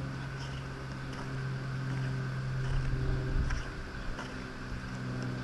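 A steady low mechanical hum, one even pitch with overtones, with a few faint light clicks and taps, as of a motorcycle gas cap being fitted back on.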